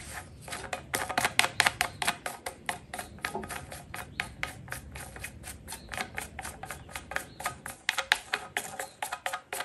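Plastic nut being spun by hand down the thread of a plastic roof cable gland, a rapid string of light clicks and ticks, several a second.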